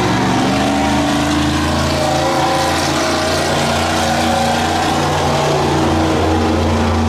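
Monster truck engine running loud and being revved: its pitch climbs about half a second in, holds, and drops again near the end.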